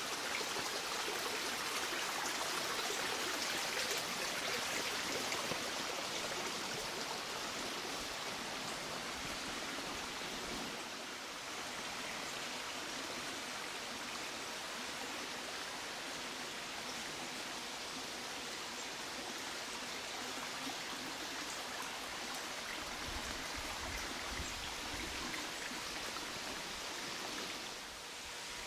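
The small Kluczwoda stream babbling and trickling steadily over its bed, a little louder during the first ten seconds or so.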